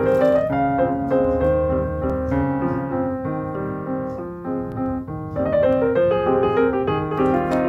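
Background piano music, a steady run of sustained notes and chords.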